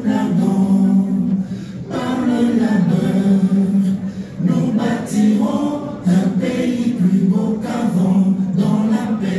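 A large crowd singing together without instruments, many voices holding long notes with short breaks between phrases.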